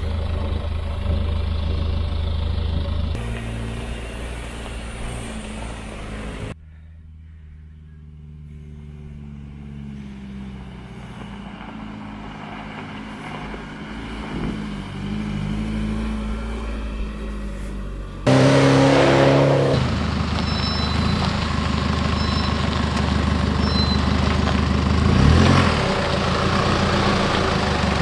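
Holden Colorado Z71 ute's 2.8-litre turbo-diesel engine running under load while driving on dirt tracks, in several cut-together takes. A quieter stretch in the middle brings the engine note rising. About two-thirds through it cuts suddenly to a louder, close-up engine running on.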